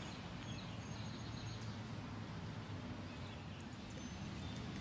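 Quiet outdoor background: a steady low hum with a few faint bird chirps. The motion alarm is not sounding yet.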